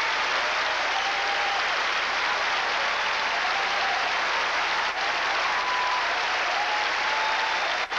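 Large concert audience applauding and cheering, a dense, steady wash of clapping.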